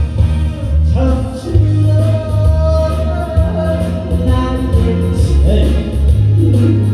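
Music: a song with a singing voice over a backing track with a heavy, steady bass. A long held note comes in about a second in.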